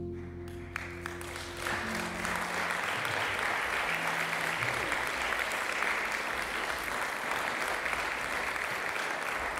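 The jazz combo's last held chord dies away in the first two seconds while the audience breaks into applause, which then carries on steadily with dense clapping.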